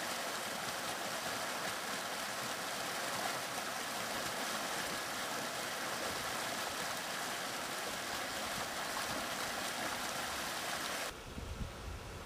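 Shallow stream rushing steadily over riffles in a concrete-lined channel. About eleven seconds in the rushing stops abruptly and gives way to a quieter bed of sound with low wind rumble and buffeting on the microphone.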